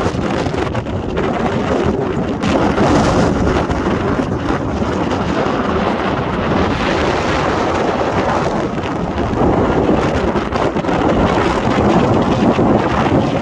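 Loud, steady wind rumble on the microphone, cutting off suddenly at the end.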